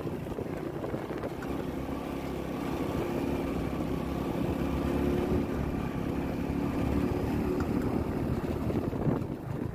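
Motorcycle engine running steadily while the bike rides along, heard from the rider's seat.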